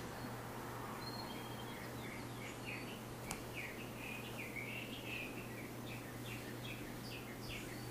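A bird chirping a rapid run of short, high notes over a steady low hum and hiss, with a single faint click about three seconds in.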